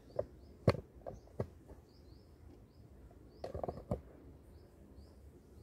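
A few light knocks and clicks from objects being handled and moved, with a cluster of them near four seconds in. A faint, short high chirp repeats every half second or so in the background.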